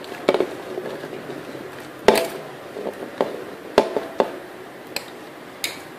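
Sliced onions pushed by hand off a plate into a steel pot: a scattering of short soft knocks and clicks as the slices drop onto the meat and fingers scrape the plate, with one sharper knock about two seconds in.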